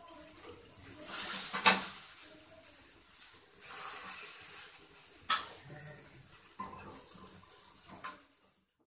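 Vegetable slices shallow-frying in oil in a metal pan, sizzling, with a metal utensil scraping and clinking as the pieces are turned; two sharp knocks on the pan, about a second and a half and five seconds in. The sound cuts off just before the end.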